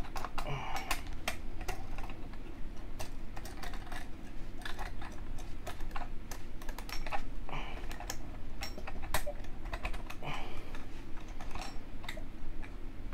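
Many small irregular metallic clicks and taps as the Remington 742's action spring is pressed and worked onto its rod, steel coils and parts clicking against each other under the fingers.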